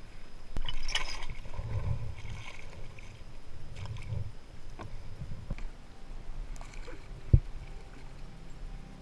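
Water splashing and sloshing around a small lifeguard paddleboard being paddled, with a single sharp knock about seven seconds in.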